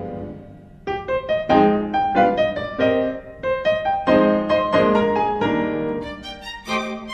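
Background piano music: a held chord fades away, then a melody of single struck notes begins about a second in.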